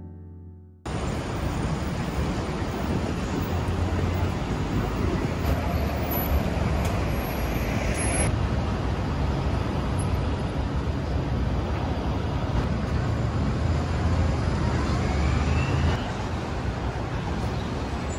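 Busy city street traffic: a steady wash of road noise and engine rumble from passing cars and buses. Twice a rising whine climbs as a vehicle pulls away.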